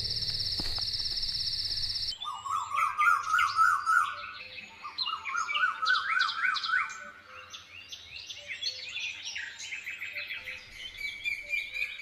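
A steady high insect trill that stops about two seconds in, giving way to birds singing: rapid repeated warbling phrases and higher chirps from several birds, in a dawn chorus.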